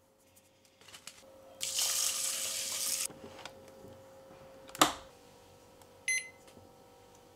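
A rice cooker's lid shuts with one sharp click, and about a second later its cook button is pressed and the cooker answers with a short electronic beep. Before that comes a second and a half of noisy rustling, and a faint steady hum lies under it all.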